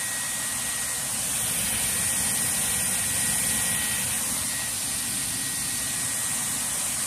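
Dyson Airwrap hair styler running on a long curling barrel, blowing a steady rush of air with a high whine from its fast motor as hair wraps around the barrel. A thin whistle in the sound fades out about four and a half seconds in.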